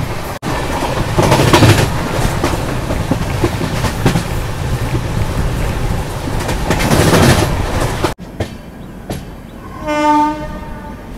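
Passenger train running at speed: a steady rumble and clatter of wheels on rail that drops abruptly to a quieter run about eight seconds in. Near the end a train horn sounds once for about a second.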